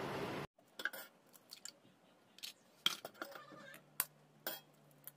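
Steel spoon tapping the shell of a raw egg over an enamel bowl to crack it: a series of sharp, irregular clicks. Before that, a steady hiss cuts off abruptly about half a second in.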